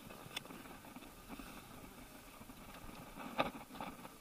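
A few light knocks and scrapes as the inflatable kayak and a hand come against a plastic floating dock, over faint water lapping. There is one sharp click near the start and a short cluster of knocks near the end.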